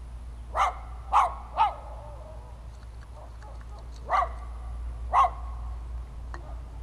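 A dog barking five times: three quick barks about half a second apart, then two more a second apart.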